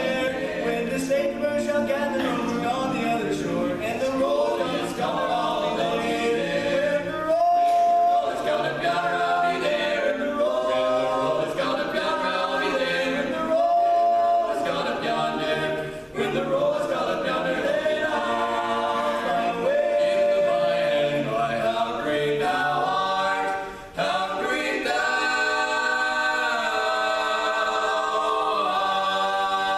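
Barbershop quartet singing a gospel medley a cappella, four voices in close harmony, with two brief breaks about 16 and 24 seconds in. From about 25 seconds in, they hold one long sustained chord.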